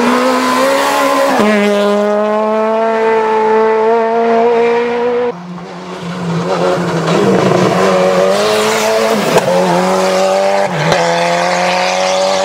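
Rally car engines running hard through tight bends. A car holds high revs, shifts up about a second and a half in, and runs on; then the sound cuts to another car whose engine note climbs, with a couple of sharp cracks near the end.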